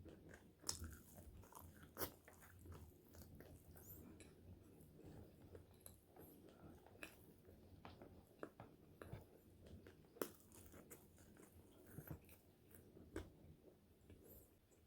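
Close-miked chewing of crispy French fries, with sharp crunches from bites about a second in, at two seconds, and twice more near the end.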